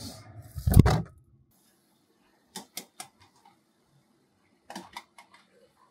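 A single heavy thump about a second in as the refrigerator is shut. After it there is quiet, broken by a few sharp clicks and taps in two short groups as eggs are handled and set into a small metal pot on the gas stove.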